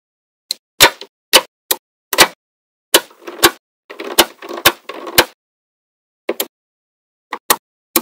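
Small magnetic balls clicking sharply as they snap onto a cube built of magnetic balls, the clicks coming singly at irregular intervals. A denser run of clicks and rattle comes in the middle, then a pause of about a second before a few more clicks.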